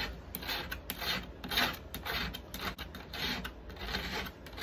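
Flat file rasping back and forth across the rivet heads of a chainsaw chain's master link, about two strokes a second, filing the rivets flush so the link can be knocked apart.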